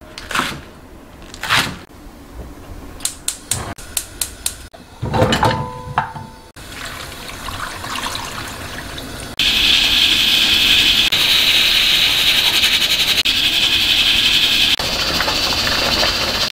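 A knife tapping through green onion against a wooden cutting board, a few sharp taps, then a brief metallic clink of cookware. About halfway through, a loud, steady hiss starts suddenly: water in a stainless steel pan of radish chunks on the gas stove.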